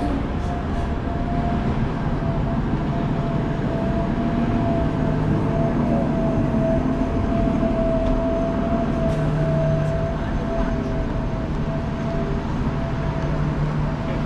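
Steady city vehicle noise: a dense low rumble with a sustained, slightly wavering high whine running through it.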